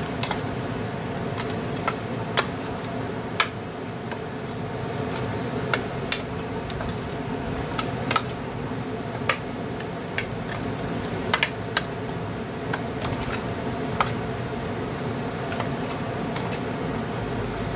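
A plastic spoon knocking and scraping against a stainless steel bowl as pieces of seasoned fish are stirred: irregular clicks, one or two a second, over a steady low hum.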